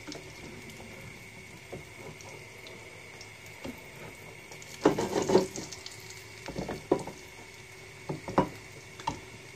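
Kitchen utensils knocking and clattering against a frying pan a few times, loudest about five seconds in, over a steady hiss.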